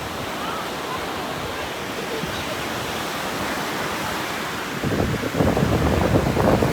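Sea waves washing onto the beach, a steady rush of surf with wind on the microphone, swelling into a louder, rougher rush about five seconds in.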